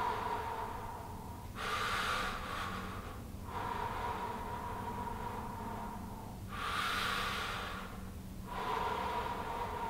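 A man breathing slowly and deeply through the mouth, long in-breaths alternating with long out-breaths through pursed lips, a couple of full breaths in all.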